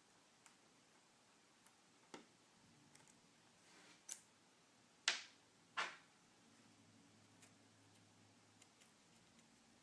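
Faint clicks and ticks of small hand tools and tiny screws being worked on an iPhone 5, with two louder clicks about five and six seconds in.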